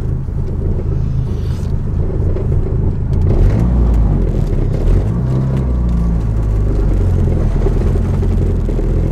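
Turbocharged 2.4-litre four-cylinder engine of a Dodge Neon SRT-4, heard from inside the cabin, running low and steady, then growing louder about three seconds in as it pulls.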